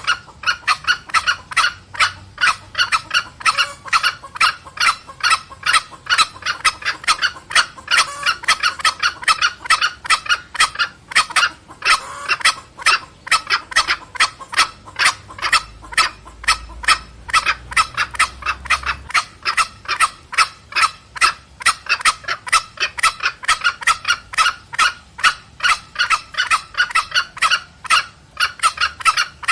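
Green junglefowl calling back and forth, hen's petrek cackle with the cock: an unbroken run of short, sharp clucks, about three to four a second.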